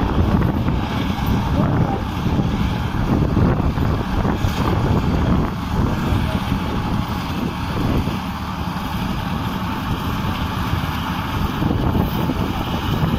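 A Swaraj 855 tractor's diesel engine runs under load, driving a tractor-drawn straw reaper that cuts stubble and blows chopped straw into the trailer, heard as a steady mechanical drone. Wind buffets the microphone with an uneven low rumble throughout.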